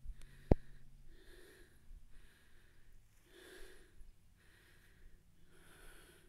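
Breathing close to the microphone, a soft puff about every second, with one sharp click about half a second in.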